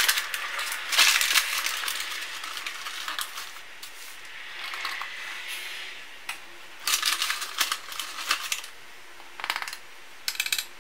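Paper flour bag crinkling and rustling in several bursts as it is opened and handled, with a measuring cup scooping flour and tipping it into a metal flour sifter.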